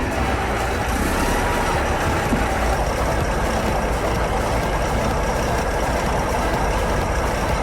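Heavy diesel engine running steadily with a low rumble.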